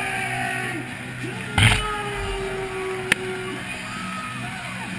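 Music over a stadium's loudspeakers, with a long held note through the middle. A short, loud rush of noise cuts in about one and a half seconds in, and a single sharp click comes about three seconds in.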